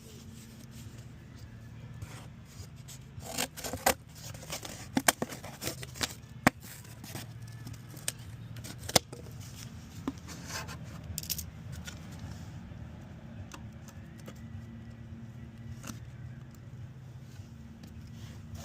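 Hand work on sheet-metal body panels: scattered metallic clicks, clinks and short scrapes of tools and rusty steel being handled, most frequent in the first half, over a steady low hum.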